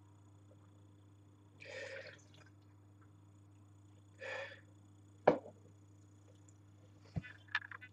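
Two short, noisy slurps of wine drawn in with air over the tongue, about two and four seconds in, then a sharp click a little after five seconds and two fainter clicks near the end.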